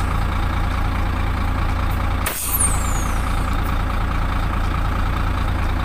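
HOWO 371 dump truck's diesel engine idling steadily. About two seconds in, a short sharp hiss of air with a falling whistle as the dump-body control lever is shifted to raise the box.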